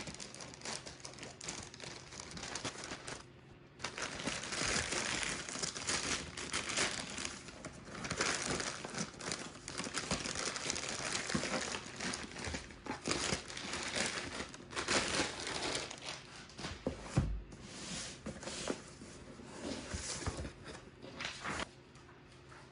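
Green plastic mailer bag crinkling and tearing as it is cut open and a cardboard box is worked out of it, in a long run of rustling bursts. A single thump comes about seventeen seconds in.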